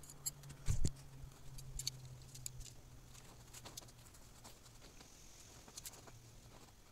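Faint scattered clicks and light taps, with one louder soft thump just under a second in, over a faint steady low hum.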